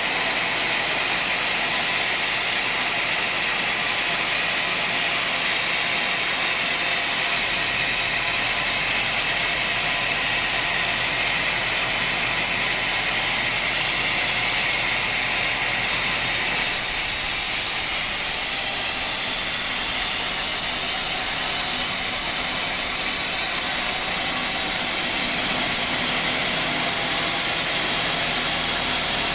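Sawmill machinery running steadily, a continuous mechanical noise. Its tone changes slightly about seventeen seconds in.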